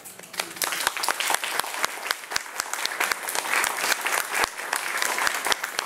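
Audience applauding, starting abruptly and continuing steadily.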